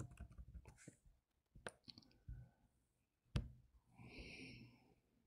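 Near silence: room tone with a few faint, short clicks, and a brief faint hiss near the end.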